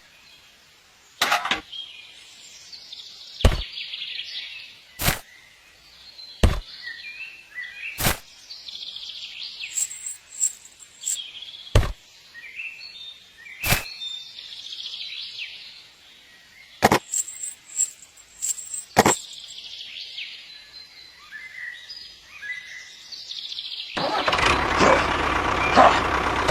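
Birds chirping, with sharp clicks or knocks at uneven intervals, about ten in all. Near the end a louder steady mechanical noise comes in.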